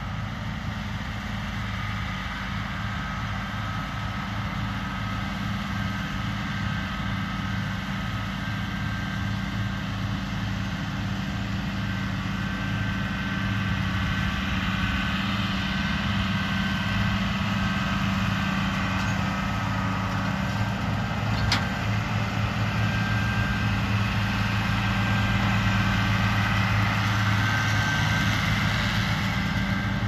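Diesel engines of farm tractors, among them an International Harvester, running steadily under load while they pull round balers through windrows. The steady low hum grows louder as one tractor draws near. There is a single sharp click about two-thirds of the way through.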